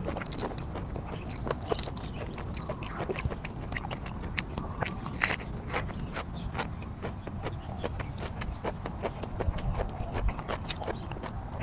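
A person chewing and biting, with many wet mouth clicks and smacks, while eating raw shrimp in chili sauce with fresh cilantro. A few of the clicks are louder than the rest.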